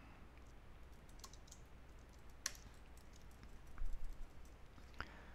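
Faint computer keyboard keystrokes: a few scattered taps, with a short cluster about four seconds in, over a low room hum.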